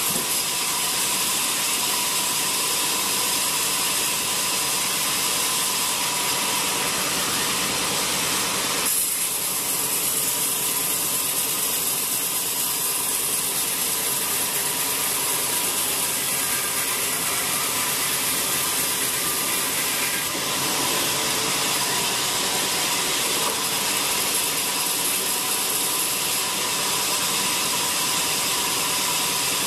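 Band sawmill cutting lengthwise through a wet teak log: a steady, loud saw-and-motor noise with a strong hiss. The sound shifts twice, about nine and twenty seconds in, as the cut goes on.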